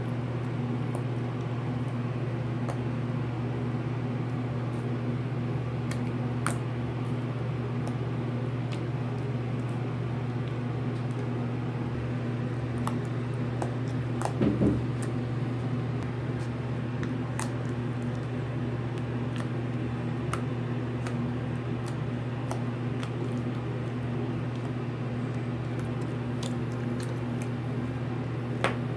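Slime mixed with shaving cream being squeezed and kneaded by hand: scattered small squishes and pops over a steady low hum, with a louder squelch about halfway through.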